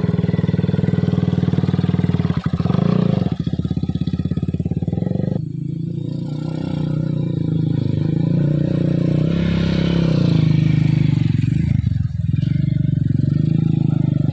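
Motorcycle engines running at close range with a steady rapid pulse. The sound changes abruptly about five seconds in and brightens briefly around ten seconds.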